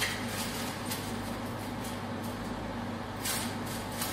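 Steady background hum and hiss with a few faint handling clicks and rustles.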